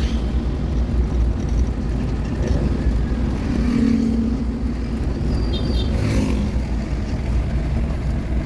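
Car driving along a highway: steady low engine and road rumble.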